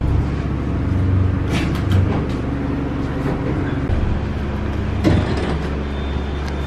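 A steady low mechanical hum that starts abruptly, with a brief sharp knock about five seconds in.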